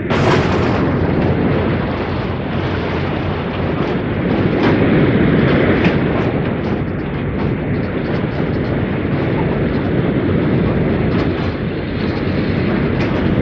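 A boat under way: a loud, steady rumbling rush of noise that starts suddenly and holds level.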